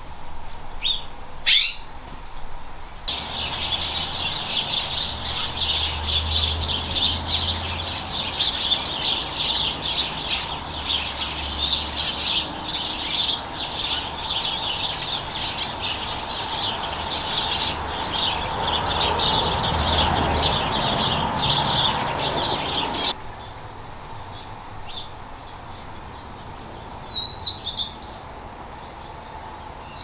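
A flock of house sparrows chirping: many short calls overlap in a dense, continuous chatter, which cuts off abruptly about three-quarters of the way through. A few separate high chirps follow near the end.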